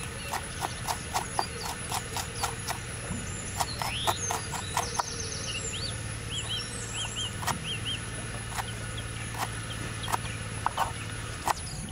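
A knife chopping on a wooden board in sharp, even knocks, about three to four a second at first, then slower and more spaced out. Birds chirp in short repeated notes in the middle.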